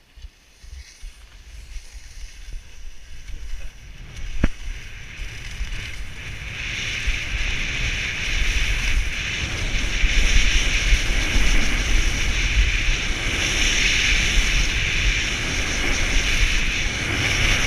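Wind rushing over the microphone and skis hissing on the snow during a straight downhill run. The noise builds over the first several seconds as speed picks up, then holds steady. There is one sharp click a little over four seconds in.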